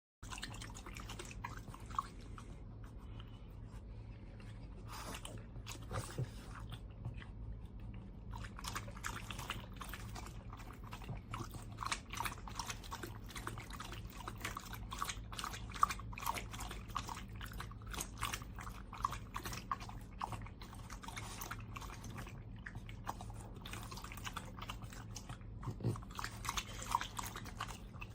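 A cat lapping water from a pet water fountain: quick, repeated wet clicks of the tongue, denser from about a third of the way in.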